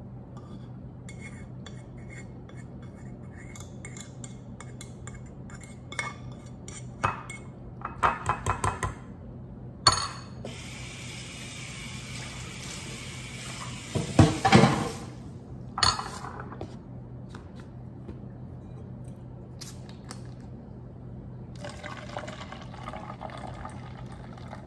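Kitchen clatter as ramen noodles are mixed in a glass bowl: a metal spoon clinking against the glass, a quick run of clinks about eight seconds in, and louder knocks around fourteen seconds. Near the end, a drink pours from a bottle into a foam cup.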